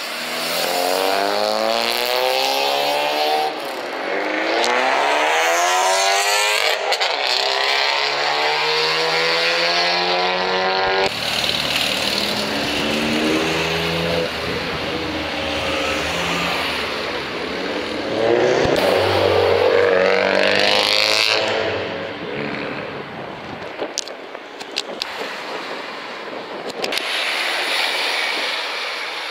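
Car engines accelerating hard, the engine note climbing in pitch several times over the first third, then a lower, steadier engine note with another sharp rev about two-thirds of the way through before it fades.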